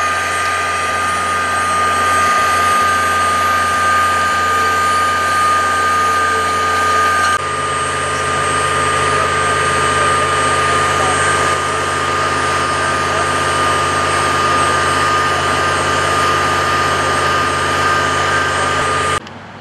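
Cat tracked machine running steadily at working revs: diesel engine with a strong, constant high whine over it. The low part of the sound shifts abruptly about seven seconds in, and it cuts off just before the end.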